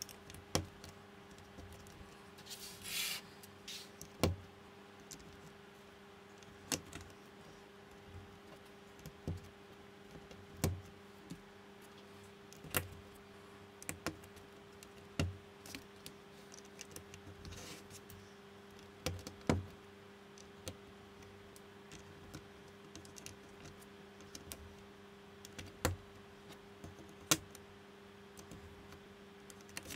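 Plastic building bricks being pressed and snapped together by hand: sharp single clicks every second or two, with a brief rustle of pieces about three seconds in, over a faint steady hum.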